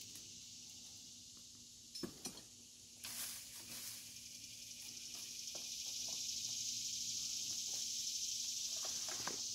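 A steady high buzz from an insect chorus, swelling about five seconds in and then holding. A few light knocks sound about two to three seconds in.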